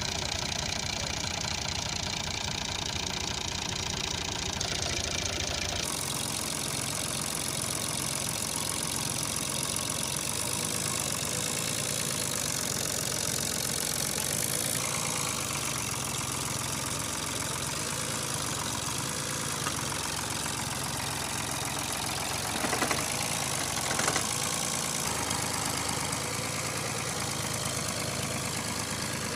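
Fiat 480 Special tractor's three-cylinder diesel engine running steadily under load as the rear tyres dig into the soil. About three-quarters of the way through come two short thumps a second apart.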